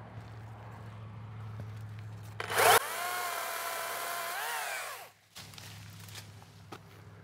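Makita 18-volt battery-powered top-handle chainsaw spinning up with a sharp rising whine and cutting a tree limb for about two seconds. Its pitch dips under load near the end of the cut, then it stops abruptly.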